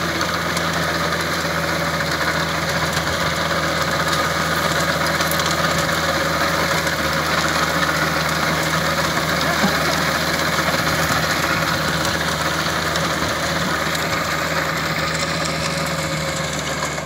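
Diesel engine of a VST Mitsubishi 27 hp compact tractor running steadily at an even speed.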